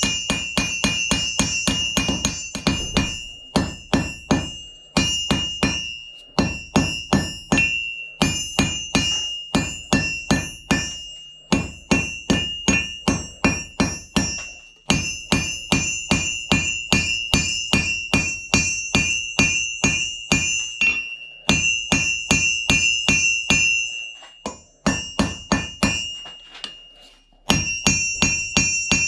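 Hammer blows on an anvil while forging a knife blade, about four strikes a second in runs with short pauses, the anvil ringing after each blow.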